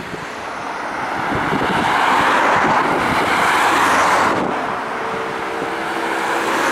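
A broad rushing noise swells and drops away about four and a half seconds in. Then a Keihan 2600-series electric train coming round the curve is heard as a steady sound with several held tones.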